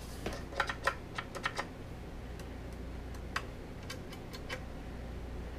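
Light clicks and taps from a Drop THX AAA 789 headphone amplifier's case being handled and turned over in the hands: a quick run of about a dozen in the first two seconds, then a few scattered ones, over a low steady hum.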